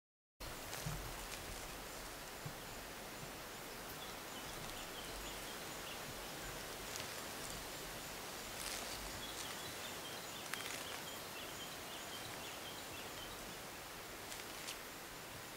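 Outdoor bush ambience that cuts in about half a second in: a steady hiss with faint, high, repeating chirps and a few light rustles and ticks.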